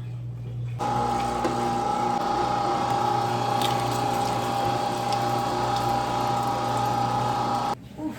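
Electric meat grinder motor running with a steady whine while grinding meat and fat. It switches on about a second in and cuts off near the end.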